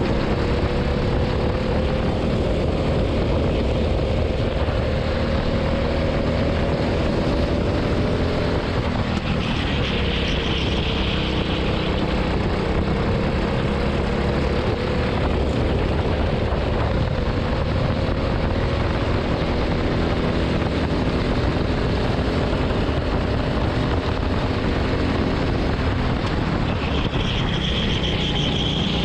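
Kart engine running flat out, recorded onboard. Its pitch climbs slowly along a straight, drops about eight seconds in as the driver lifts for a corner, then climbs again and dips near the end. A brief higher hiss comes about ten seconds in and again near the end.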